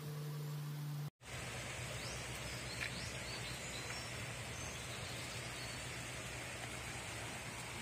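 Steady outdoor background hiss with a low hum and a few faint, short, high chirps, interrupted by a sudden brief dropout about a second in where the recording cuts.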